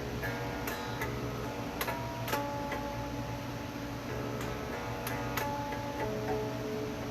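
Plucked-string notes held and changing every second or two, with light clicks ticking in among them.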